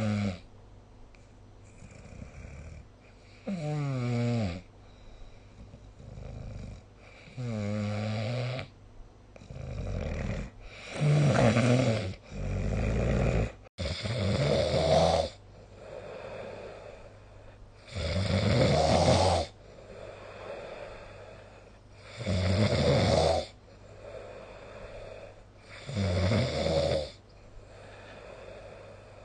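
A person snoring in sleep, one loud snore every three to four seconds with quieter breathing between them; some snores carry a wavering, fluttering pitch.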